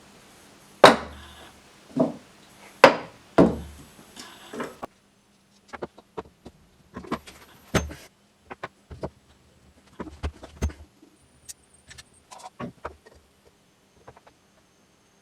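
Hard knocks and taps, as of tools and parts being handled at a workbench. Four loud, sharp knocks come in the first few seconds, then lighter scattered clicks and taps.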